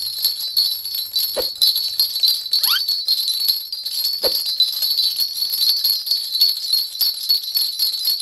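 A Korean shaman's brass bell rattle (bangul) shaken continuously in a steady jingle, the shaman calling down the spirits.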